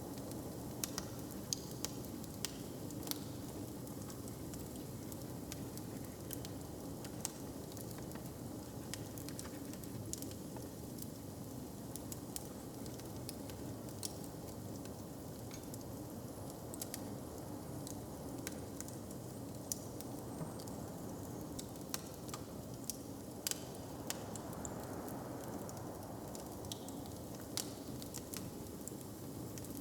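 Wood fire crackling in a hearth: irregular sharp pops and snaps over a steady low rumble.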